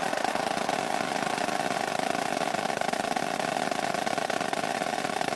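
Large crowd cheering, loud and steady.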